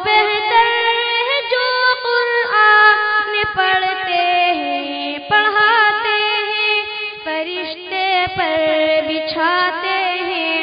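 An Urdu nasheed sung without instruments: a high voice holding long, ornamented notes with a wavering pitch, moving to a new note every second or two.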